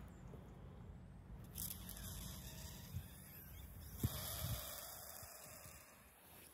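Faint handling noise: soft rustling and a few light knocks over a low steady rumble, fading out near the end.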